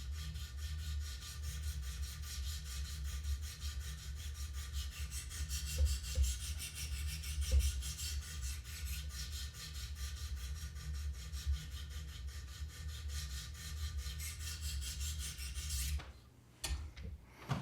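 Sharpening stones of a Wicked Edge guided sharpener rubbing back and forth along a CPM-M4 steel knife edge in quick, even strokes, raising a burr. The scraping stops about sixteen seconds in.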